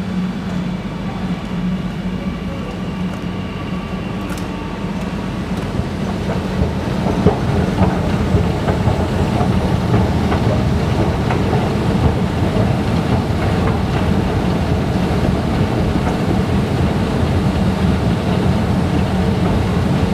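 Steady low hum of a running escalator under the rumble of an MRT train in the station, which grows louder about six seconds in and stays up.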